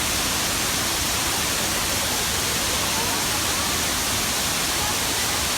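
A waterfall's water falling and splashing, an even, unbroken rushing.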